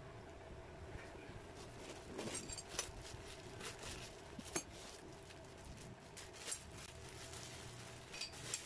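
Clear plastic bags crinkling and rustling as they are handled, with small clinks from the metal tools inside; faint, in scattered short crackles over a faint steady hum.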